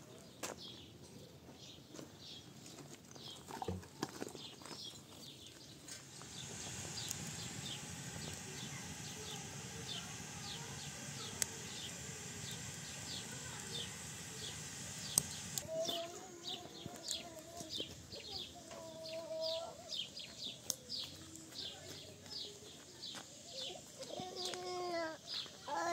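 Farmyard chickens: short high chirps repeating about twice a second, with clucking calls in the last third. A steady hiss runs for several seconds in the middle.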